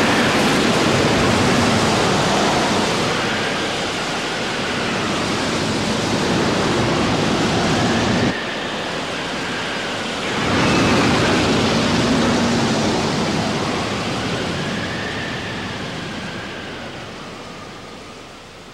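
Loud rushing roar of a shock wave as a container shoots past along a linear catapult track, a cartoon sound effect. It drops off suddenly about eight seconds in, surges back about two seconds later, then fades slowly away.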